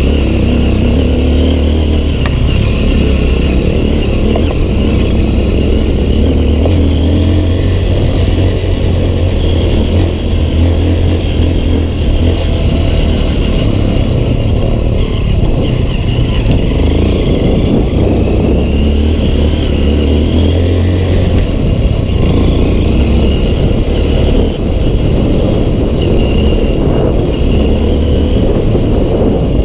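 Honda CRF150L's single-cylinder four-stroke engine running under way, heard on board, its note shifting up and down with the throttle as the bike is ridden along a dirt trail.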